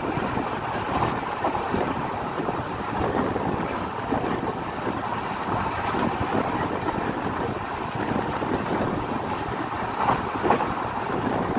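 Express passenger train running at speed, heard from a coach window: a steady rumbling rush of wheels on rails, with a few sharper clacks about ten seconds in.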